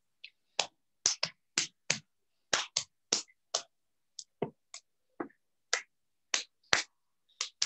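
A string of short, sharp clicks, about two or three a second and irregularly spaced, with silence between them.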